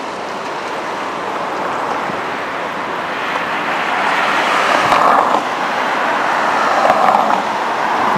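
Road traffic noise from cars going by on a busy boulevard: a steady wash of tyre and engine noise that grows slowly louder, swelling as vehicles pass about four seconds in and again near seven seconds.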